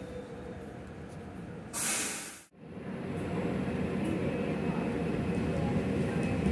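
An EMU500 commuter train's running noise with a faint, slightly falling whine from its GTO-VVVF drive as it slows into the station. A loud hiss about two seconds in fades fast to a moment of silence. Then a TEMU1000 Puyuma tilting express approaches, its rumble of wheels and motors growing steadily louder.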